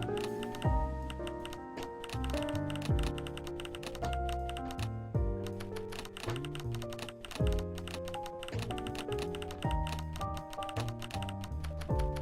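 Instrumental music: held notes and chords over a deep thump about every two seconds, with fast clicking percussion throughout.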